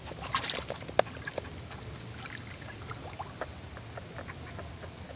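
Light clicks, knocks and rustles of a fishing net and fish being handled, busiest in the first second and a half, over a steady high trill of crickets.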